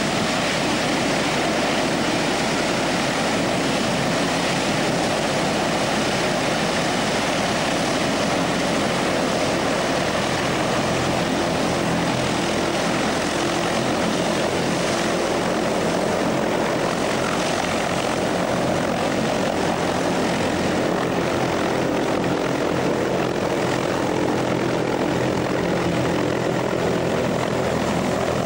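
SRN4 hovercraft under way on its air cushion: its four Rolls-Royce Marine Proteus gas turbines running and its pylon-mounted propellers and lift fans blowing, a loud, steady rush of propeller and turbine noise.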